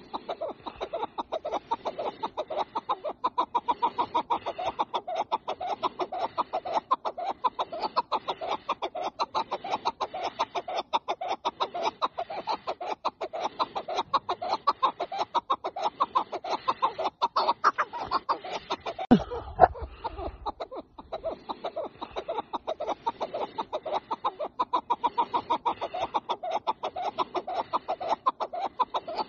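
Chukar partridge calling, a fast, steady run of clucking notes that goes on and on, breaking off briefly about two-thirds of the way through.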